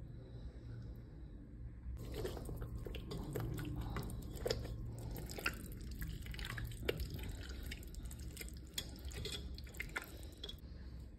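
Bare hand squeezing and turning raw mutton pieces in oil and spice paste in a pot: wet squelching and smacking, starting about two seconds in and stopping shortly before the end.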